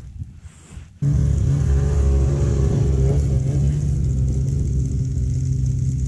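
A vehicle engine running steadily at a constant speed, close and loud, cutting in abruptly about a second in.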